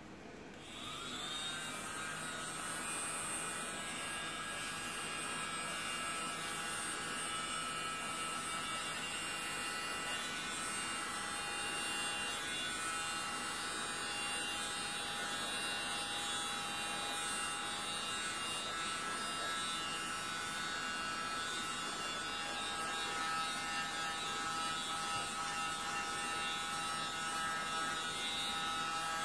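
Small handheld electric mini blower switching on about a second in, its motor whine briefly rising in pitch as it spins up, then running steadily while it blows air over wet pour paint on a canvas.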